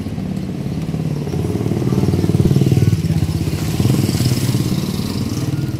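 A motorcycle engine running while riding, a steady low pulsing hum that swells a couple of seconds in.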